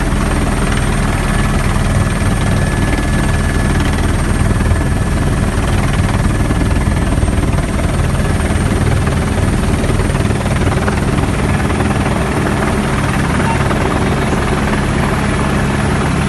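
Helicopter in flight heard from inside the cabin: a steady, loud rotor and engine noise with a thin steady whine above it.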